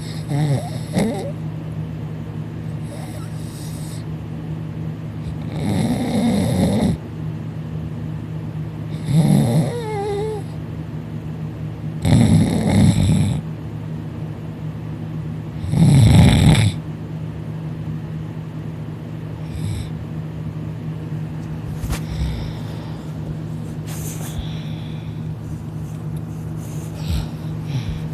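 A person in deep sleep snoring loudly, with a harsh snore on each breath about every three to four seconds. The loudest snores come near the middle, and the later ones are lighter, over a steady low hum.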